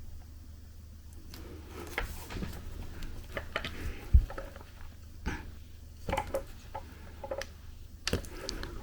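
Pliers gripping and bending a laptop's bent case edge back into shape: scattered clicks and taps of the tool on the case, with a dull knock a little past the middle.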